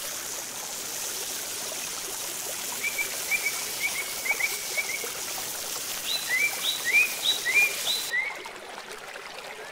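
Pieces of murrel fish shallow-frying in oil on a flat pan over a wood fire, giving a steady sizzle that drops away sharply about eight seconds in. Short chirping calls repeat over it from about three seconds in.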